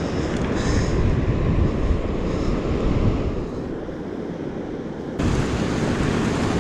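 Wind buffeting the microphone over the wash of ocean surf, a steady rumbling noise. About five seconds in the sound jumps abruptly louder and brighter.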